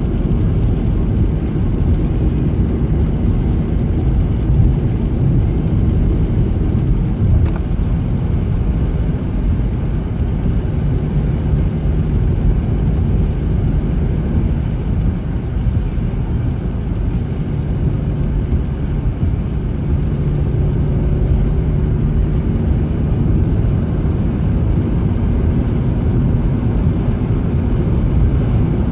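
Car engine and tyres heard from inside the cabin while driving at steady speed on a wet road: a constant low rumble with a faint steady hum.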